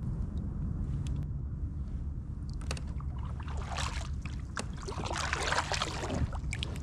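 Water splashing and sloshing against a fishing kayak's hull, loudest from about three to six seconds in, over a steady low hum.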